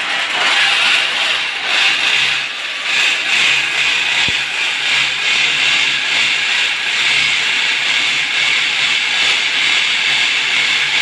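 Electric drill boring a hole through ceramic wall tile, running steadily and without a break.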